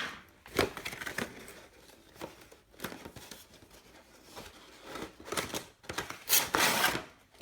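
A cardboard box being opened and handled, with flaps and panels rustling, clicking and scraping. The loudest part is a rough scrape of cardboard sliding against cardboard about six seconds in, as an inner box is drawn out.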